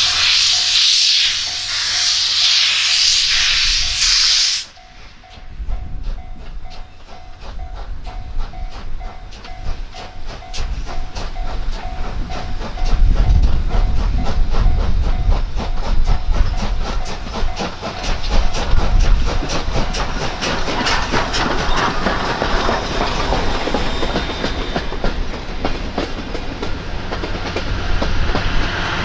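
C57 steam locomotive and its train passing close by. A loud hiss of steam cuts off abruptly about four and a half seconds in. Then the engine's low rumble builds as it goes by, followed by the coaches' wheels clicking rapidly over the rail joints.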